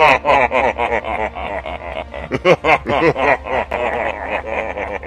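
Exaggerated villain's laughter: a voice cackling in quick repeated 'ha' syllables that rise and fall in pitch, without a break.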